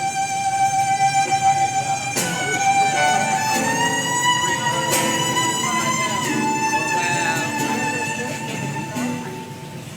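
Violin playing a slow melody of long held notes, changing note every second or two.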